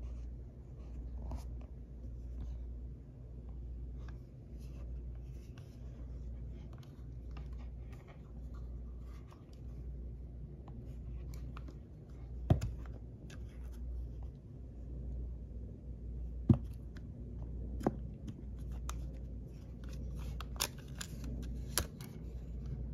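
Clicks and knocks from a Panasonic RQ-SX50 cassette player being picked up and handled, the last ones as its cassette door is opened. Underneath is a low hum that swells and fades about once a second.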